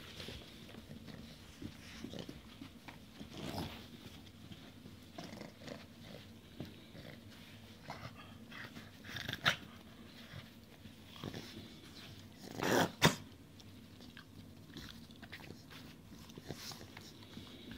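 Boxer puppies playing with a sneaker: soft scuffling and mouthing sounds, with a few short barks, one sharp one about halfway through and a louder pair a few seconds later.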